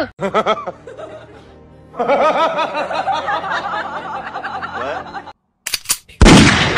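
A high, bouncing laugh over background music, running for about three seconds in the middle. A sudden loud noisy burst comes near the end.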